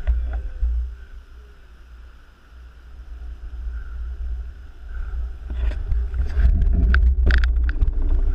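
Wind buffeting the microphone of a camera riding along on a bicycle, a loud low rumble that eases off around two seconds in and builds again after about five seconds. Several sharp clicks and knocks come in the last few seconds, typical of the bike rattling over the road.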